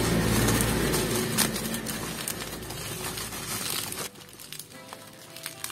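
Bubble wrap being handled and pulled open, a dense crinkling with many small crackles that dies away about four seconds in. Quiet background music with held notes is left after it.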